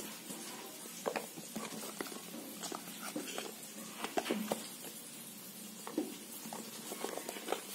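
Small cardboard watch boxes being handled and opened by hand: scattered light taps, scrapes and rustles of cardboard and plastic packaging.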